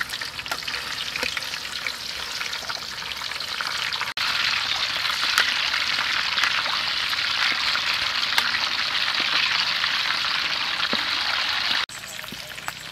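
Rolled pork belly deep-frying in a wok of hot oil: a steady sizzle with scattered small pops and crackles. It grows louder about four seconds in and drops back near the end.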